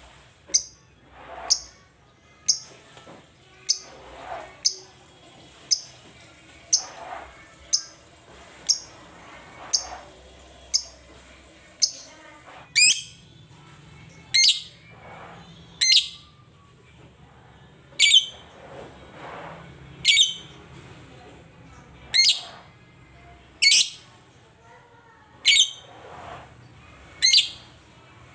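Lovebird giving a long series of short, shrill chirps, about one a second at first, then spaced out to every second and a half to two seconds.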